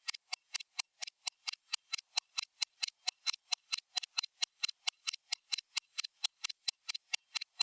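Stopwatch ticking sound effect: sharp, evenly spaced ticks at a fast, steady rate of about six a second.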